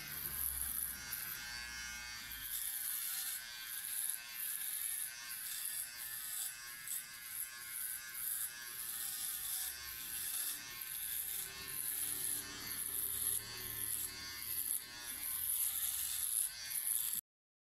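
Powertec TR-150 cylinder electric shaver running as it is drawn in repeated strokes over close-cropped hair and stubble at the back of the head and neck. Its high-pitched buzz swells and eases with each stroke, then cuts off suddenly near the end.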